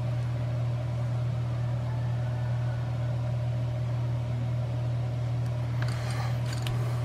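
A steady low machine hum, with a few faint light taps about six seconds in.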